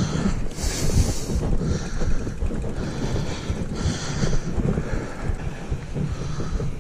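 Wind buffeting the camera microphone as a mountain bike rolls downhill, its tyres rumbling over loose gravel and sand.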